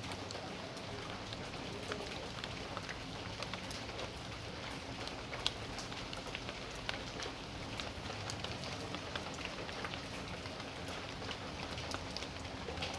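Steady rain falling on a backyard, an even hiss with many individual drops ticking sharply throughout.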